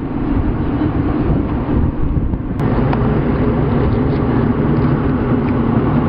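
Vehicle engine running with a steady low hum over road noise, with a brief click about two and a half seconds in.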